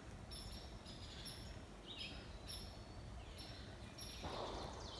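Small birds chirping: short, high calls repeated about every half second, some sliding downward. A brief rustle about four seconds in.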